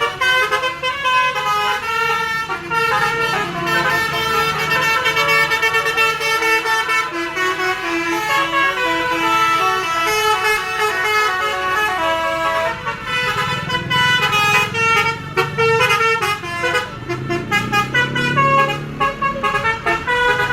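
Basuri telolet horn on a bus: a multi-tone air horn playing a tune of quickly changing notes, with a low rumble underneath in places.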